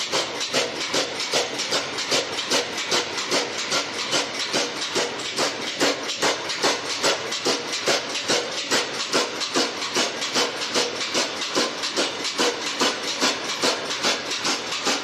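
Power hammer striking a hot Damascus steel billet in a fast, even rhythm of blows.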